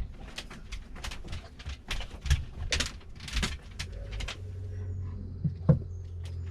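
Irregular handling noises, short rustles, scrapes and clicks, then a steady low hum that starts about four seconds in.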